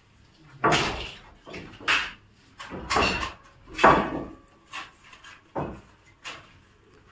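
Metal channels of a false-ceiling frame being handled and fitted by hand, clanking and knocking irregularly about once a second, with the loudest knock a little past the middle.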